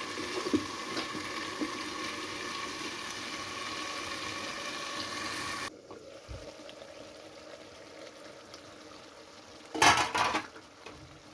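Chicken sizzling and simmering in its own released water in a covered aluminium kadai, a steady hiss that drops suddenly quieter about halfway through. Near the end there is a brief metallic clatter as the aluminium lid is lifted off.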